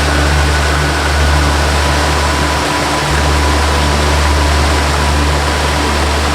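Waterfall rushing steadily, mixed with a slow ambient melody of long held notes. A deep bass note changes about every three seconds, with faint higher tones drifting above it.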